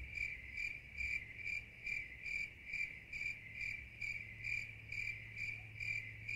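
A cricket chirping steadily in an even rhythm, about two to three high chirps a second, over a faint low hum.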